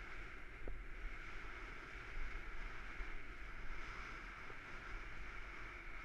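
Steady rushing noise of a bicycle ride: wind on the bike-mounted camera's microphone over the rumble of tyres rolling on asphalt, with a couple of faint clicks.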